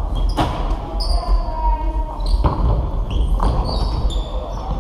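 Dodgeballs striking the floor and walls with repeated sharp thuds during play, mixed with sneakers squeaking on the court.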